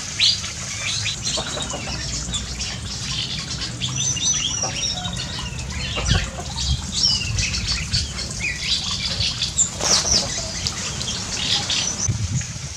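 Several birds chirping and whistling at once, short calls and trills overlapping throughout, over a low steady rumble.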